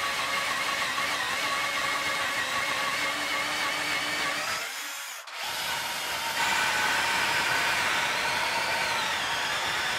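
Cordless drill cutting down through plywood, a steady whine with a grinding edge. It stops briefly about five seconds in, then starts again at a slightly different pitch.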